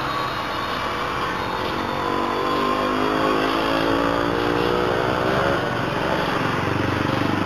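Road traffic, with a motor vehicle's engine passing close by: its pitch rises and then falls away a little after five seconds in, over a steady traffic background.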